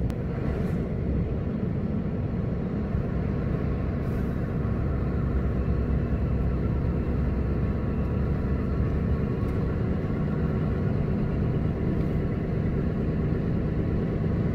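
Lorry engine running with a steady low rumble.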